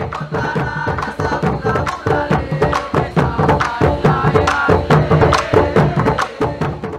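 Percussion-led music: busy drumming over a melodic instrument line, fading out near the end.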